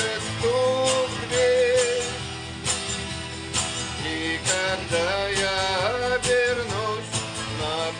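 Rock song in a passage without lyrics: a wavering melody line over guitar and a steady drum beat.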